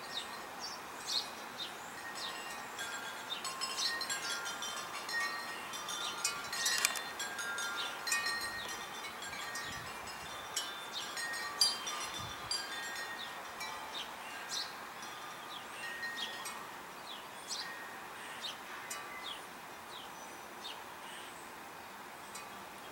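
Outdoor wind chimes ringing on and off in a breeze, several notes sounding together, busiest in the first half. Small birds chirp briefly throughout.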